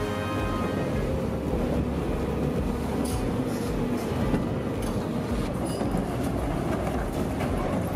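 Caterpillar 395F tracked excavator working under load as its rail-ripping attachment tears steel rails and concrete out of a street bed: a dense, continuous rumble of engine and grinding, scraping metal and rubble, with several sharper knocks of steel and concrete.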